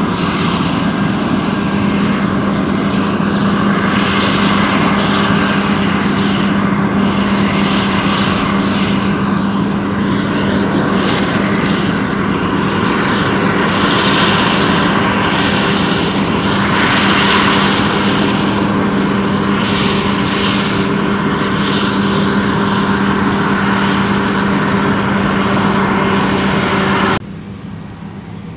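Claas Lexion 770 TT combine harvester running at work cutting wheat: a steady machine drone with a strong low hum and a rushing noise over it. Near the end it drops suddenly to a quieter, more distant sound of the same machine.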